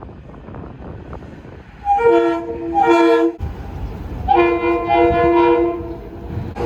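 Metro-North train's RS2M horn sounding a chord: two short blasts about two seconds in, then a longer blast of about a second and a half, over the rumble of the running train.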